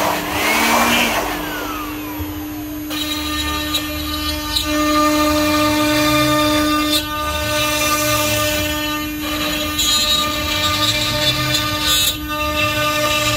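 Electric woodworking power tool running with a steady whine, its motor pitch sweeping up and then winding back down in the first few seconds.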